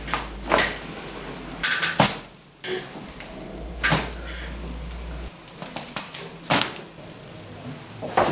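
Chiropractic neck and thoracic spine adjustments: about five sharp cracks or thuds from the adjustment thrusts, loudest about two seconds in and again near the end.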